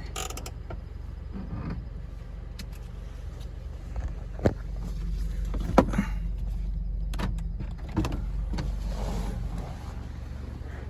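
A vehicle engine idling steadily, with a few sharp knocks about four and a half, six and eight seconds in.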